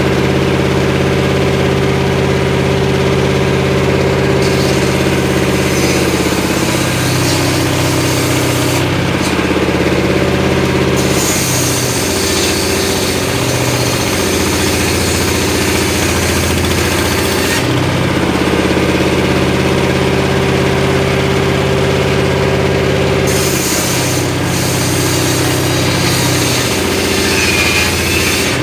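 Engine-driven homemade circular saw ripping short mahogany: the engine runs steadily, and in several cuts a hiss of blade through wood rises while the engine's pitch sags under the load, easing again between cuts.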